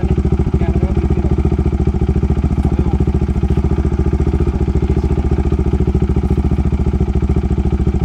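Bajaj Dominar's single-cylinder engine idling steadily through an aftermarket exhaust with the dB killer removed, giving a loud, even, rapid beat.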